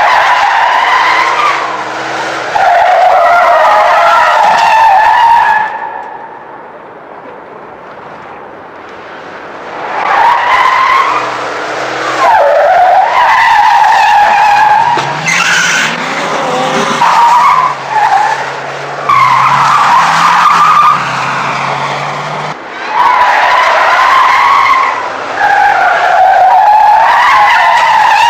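Vintage sound-effect car tire skids: a series of long, wavering tire screeches in several bursts, with a quieter gap about six seconds in. In the middle a low steady drone runs beneath the squeals.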